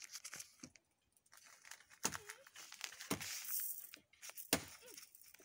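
Crinkling of a plastic seasoning packet being handled and shaken out over a bowl of raw meat, with a few sharp clicks.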